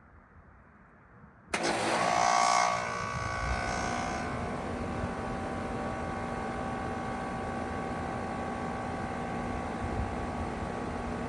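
2018 2.5-ton Lennox Merit heat pump outdoor unit starting up in heat mode: it kicks on suddenly about a second and a half in, loudest for the first second, then settles into steady running with a steady hum and whine.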